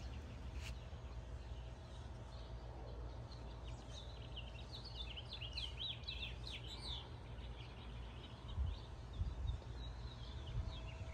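A small bird singing a quick run of high chirps about halfway through, with a few fainter chirps after, over a steady low outdoor rumble. A few low bumps come near the end.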